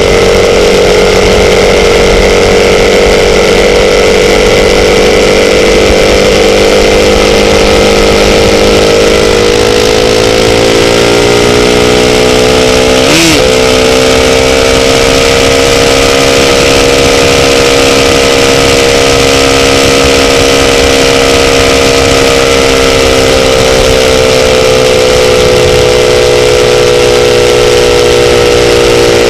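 Motorcycle engine running at a steady cruise, its pitch easing down about ten seconds in and climbing slightly again near the end, over a steady rush of noise. A single sharp click about thirteen seconds in.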